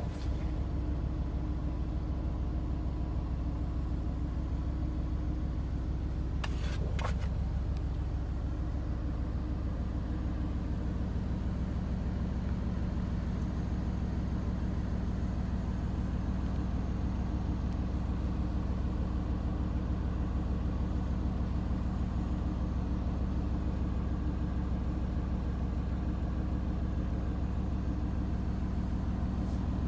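2019 Aston Martin Vantage's twin-turbo 4.0-litre V8 idling steadily, heard from inside the cabin.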